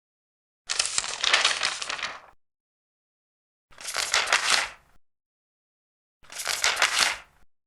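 Large paper pages being turned by hand, three times, each turn a crisp rustle of about a second with silence between; the first turn is the longest.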